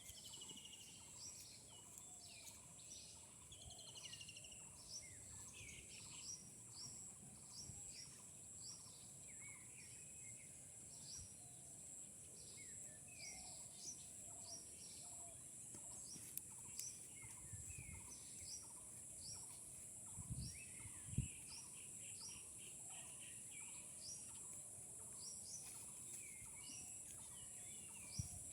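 Small birds chirping and twittering faintly and continuously in many short, quick calls and trills over a steady high-pitched whine. A couple of dull thumps come about two-thirds of the way in.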